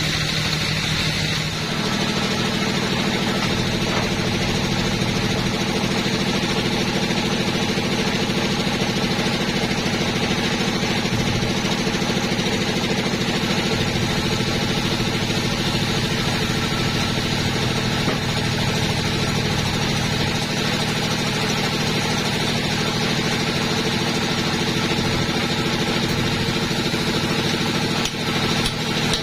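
Two-stroke chainsaw running steadily at high speed, its pitch stepping up about a second and a half in and then holding.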